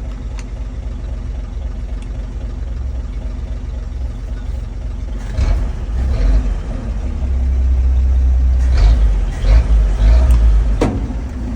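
Engine of a 1961 Chevrolet Apache 60 truck running steadily. It grows louder and deeper about halfway through. A few short knocks come in the second half.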